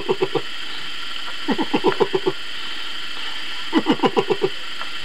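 Science-fiction electronic sound effect: a steady hum with three bursts of quick chirps that fall in pitch, about two seconds apart.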